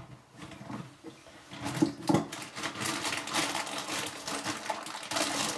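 Rapid clicking and rattling of hard plastic and metal parts being handled, with a few louder knocks about two seconds in; this is work on a Flushmate pressure-assist flush cartridge.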